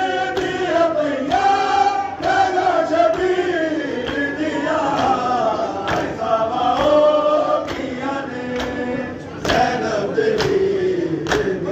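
A crowd of male mourners chanting a drawn-out, wavering lament together, with sharp slaps of hands beating on chests (matam) breaking in now and then.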